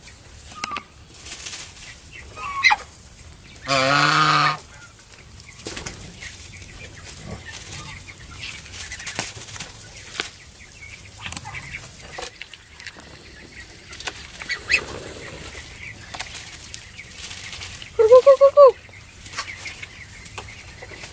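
Muscovy ducks feeding on maggots: a run of quick pecking clicks and rustling of a plastic bag and straw. Poultry calls break in: one loud drawn-out call about four seconds in and a few short calls near the end.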